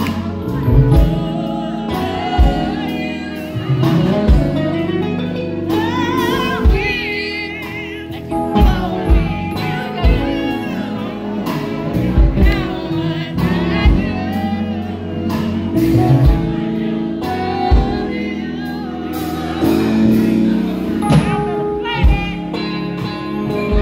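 Live band playing: drum kit, electric bass, electric guitar and Yamaha MO8 synthesizer keyboard, with a voice singing over a steady beat.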